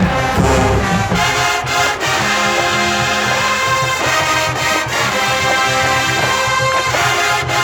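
College marching band playing a tune, its brass section holding loud chords and melody lines over a steady drum beat.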